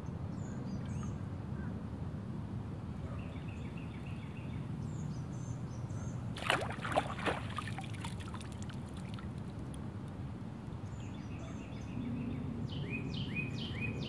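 Outdoor background of steady low noise with birds chirping now and then. About six and a half seconds in comes a brief run of sharp clicks and taps, three of them loudest.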